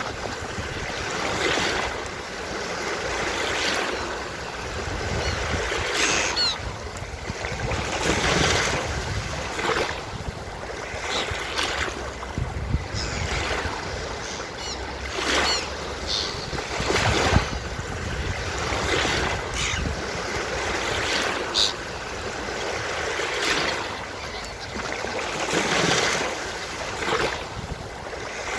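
Ocean waves breaking and washing up on a beach, surging again every couple of seconds.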